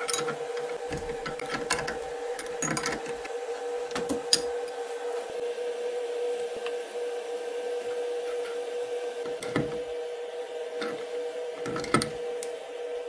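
Spanners clicking and clinking against the collet nut and spindle of a desktop CNC router as the bit is loosened, changed and tightened, as a scattered run of sharp metal clicks, the loudest just after 4 s and near 12 s. Under them runs a steady machine hum.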